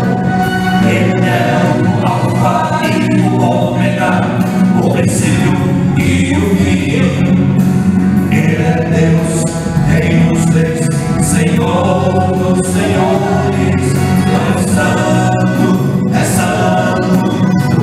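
Male vocal quartet singing a gospel praise song together in harmony, amplified through microphones.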